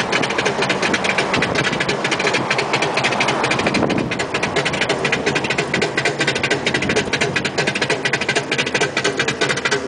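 A car driving, heard from inside: engine and road noise with a dense, fast clatter.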